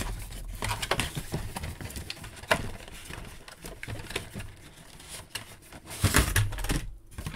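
Cardboard toy box being handled: the end flap opened and the plastic-windowed tray slid out, with soft rustling and scraping, a sharp click about two and a half seconds in, and a louder scrape near the end.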